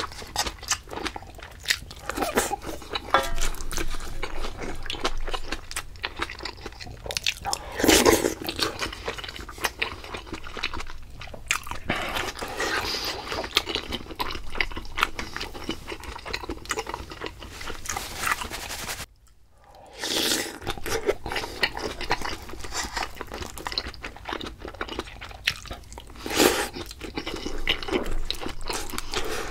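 Close-miked eating: a person chewing and biting food, with irregular crunchy, wet mouth sounds and a few louder bites. The sound drops out almost completely for about a second midway.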